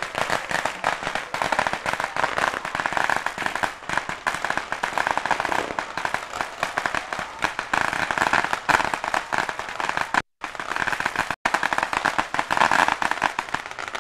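Strings of firecrackers going off in a long, continuous crackle of rapid pops, the rattle set off at Chinese tomb-sweeping grave rites. The sound cuts out to silence twice, briefly, about two-thirds of the way through.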